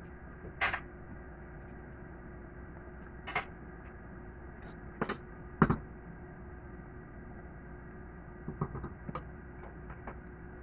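A spatula knocking against a stainless steel pot while shrimp in a creamy sauce is stirred: four sharp knocks spread over the first six seconds, then a quick run of lighter taps near the end, over a steady low hum.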